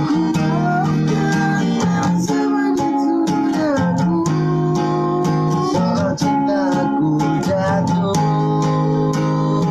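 Acoustic guitar strummed in a steady rhythm, with a voice singing a slow melody over it.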